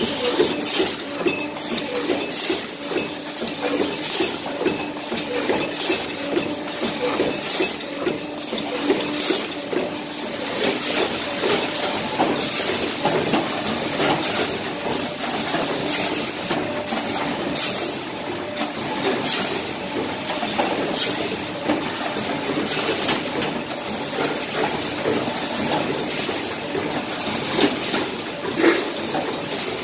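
A row of automatic double-station paper plate forming machines running together: a steady mechanical clatter of the forming presses cycling, with frequent short hisses and clicks.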